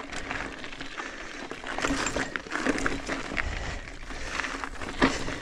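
Mountain bike tyres crunching over a loose gravel fire road, with irregular clicks and rattles from the bike; louder from about two seconds in.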